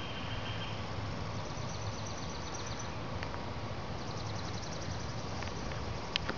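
Outdoor ambience: small songbirds give two high, fast trills over a steady low background hiss and hum. A single sharp click comes near the end.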